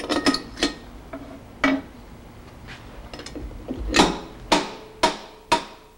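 Hammer tapping a seat driver to drive a nickel-alloy valve seat into a heated aluminium Shovelhead cylinder head. A few light metal clinks come first, then from about four seconds in come steady ringing blows, about two a second.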